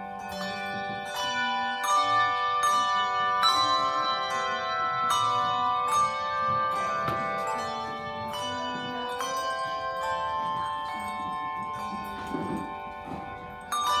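Handbell choir ringing brass handbells: chords and melody notes struck at a steady pace, each leaving long ringing tones that overlap. The ringing softens near the end, then a loud new chord is struck.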